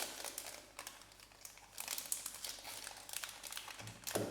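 Crinkling of plastic packaging being handled, an irregular crackle with many small clicks.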